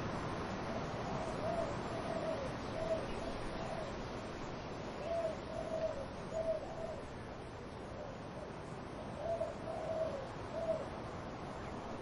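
A dove cooing in three short phrases of several low coos each, about four seconds apart, over a steady rush of wind in the trees.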